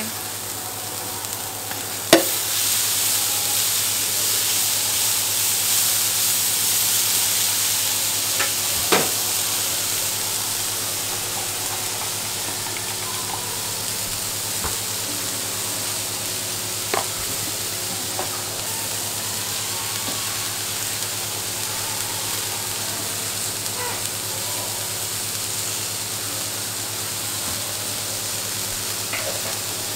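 Food sizzling on a hot round jianbing griddle, a steady hiss, with a few sharp clicks of utensils on the metal plate, the loudest about two seconds in. A low steady hum runs underneath.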